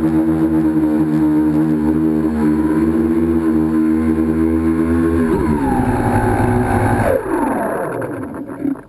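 Tricopter's electric motors and propellers buzzing steadily, then winding down in pitch twice as the throttle is cut for landing, dying away at the very end.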